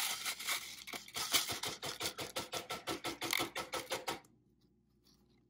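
Gravel and water poured from a plastic cup onto a wire-mesh screen: a fast, irregular rattle of small stones clicking onto the metal mesh over a light splash, stopping about four seconds in.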